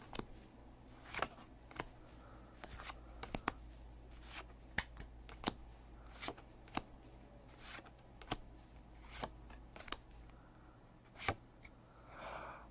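Pokémon trading cards being flipped through one at a time in the hand, each card slid off the front of the stack and tucked to the back with a short sharp flick, roughly once or twice a second.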